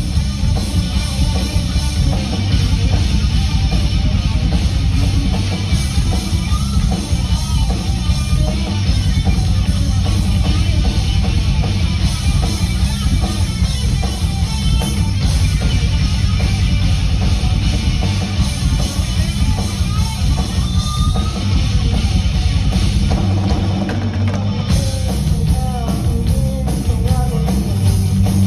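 Hard rock band playing a song live through a PA: distorted electric guitar, bass and drum kit, played continuously at full volume.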